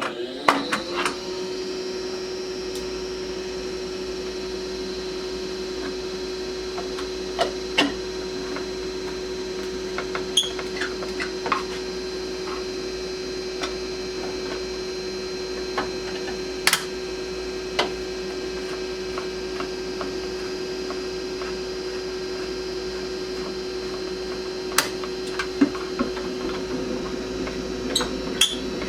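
A steady electrical hum that comes on and rises briefly about half a second in, then holds unchanged, like a motor running. Scattered light clicks and taps of hand work on the plastic headlight bezel and its fasteners sound over it.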